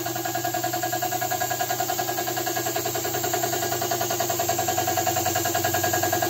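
Air compressor running steadily with a fast, even pulsing beat, supplying a paint spray gun.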